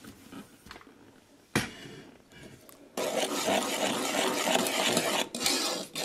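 A spoon stirring a thick cocoa, sugar and milk mixture in a saucepan, rubbing and scraping against the pot, starting about three seconds in. One sharp knock comes about a second and a half in.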